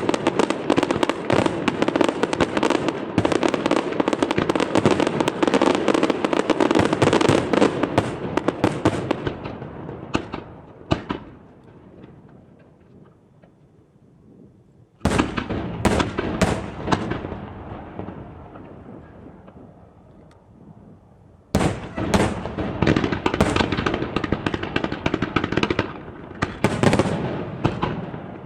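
Aerial fireworks bursting, a dense run of rapid bangs and crackling that dies away about ten seconds in. After a short lull a new volley bursts in suddenly about fifteen seconds in and thins out, then another dense volley starts about twenty-one seconds in and fades near the end.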